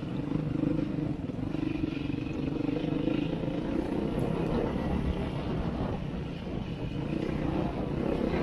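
Beta 390 RR-S dual-sport motorcycle's single-cylinder four-stroke engine running under way at fairly steady revs, easing off briefly about two-thirds of the way through.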